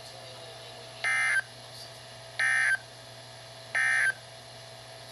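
Emergency Alert System end-of-message signal: three short bursts of buzzing SAME digital data tones, each about a third of a second long and just over a second apart, marking the end of the alert.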